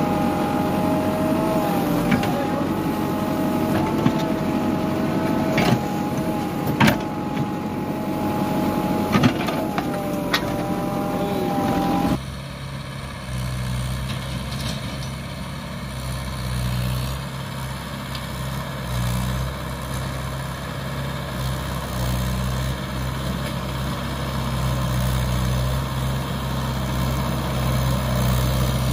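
Excavator running close by: its engine and hydraulic whine dip and rise as the arm works, with several sharp metal clanks from the bucket. About twelve seconds in, the sound cuts to a diesel tractor engine's steady low hum as a Mahindra tractor drives closer, growing a little louder near the end.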